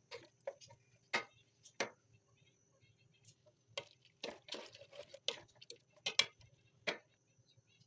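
Kitchen utensils clinking and knocking against cookware while a potato curry is made: about a dozen sharp, irregularly spaced strikes over a faint steady hum.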